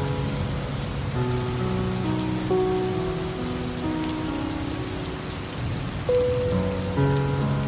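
Steady rain hiss mixed with slow, soft music of long held notes that change every second or so; a new note strikes clearly about six seconds in.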